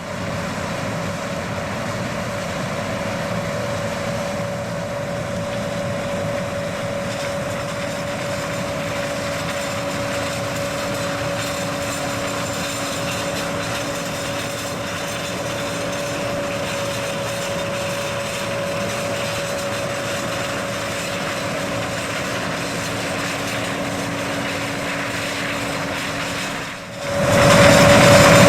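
Corn-harvest machinery, a combine and a grain-cart tractor, running steadily with a constant mid-pitched whine over engine noise. Near the end the sound dips briefly, then returns louder.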